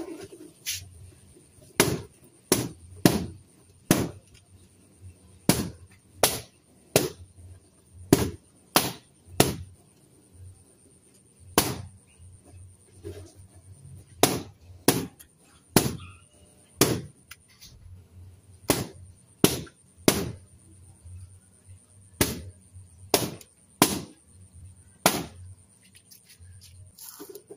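Party balloons being popped one after another: about two dozen sharp bangs at uneven intervals, roughly one a second.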